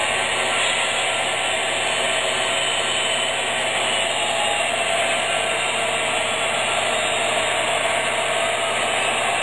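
Sound-equipped MTH HO scale EMD SD70M-2 model locomotives running, their onboard speakers playing a steady simulated diesel engine drone.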